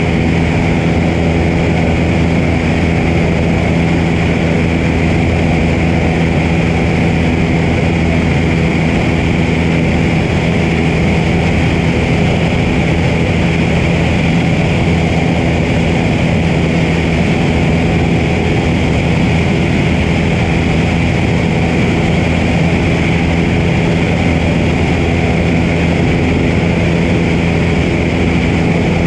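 Piper PA-22 floatplane's engine and propeller running steadily, a loud even drone heard from outside the cabin, with wind rushing over the float-mounted camera.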